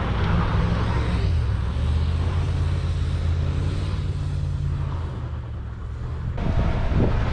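A full-size SUV's engine pulling it up a steep dirt and gravel hill, a steady low drone with tyre noise over it. About six seconds in it cuts off suddenly and gives way to a rougher rumble.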